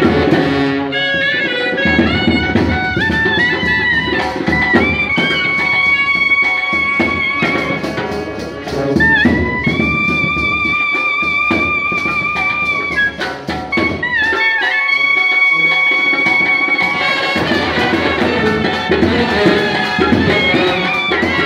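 A clarinet plays a solo melody with runs and long, wavering held high notes about ten seconds in and again about fifteen seconds in. Band accompaniment with brass and drum strokes plays underneath, thinning briefly just after the middle.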